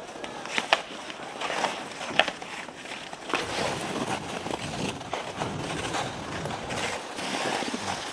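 Ice skates scraping over outdoor pond ice, with sharp, irregular clacks of hockey sticks striking the ice.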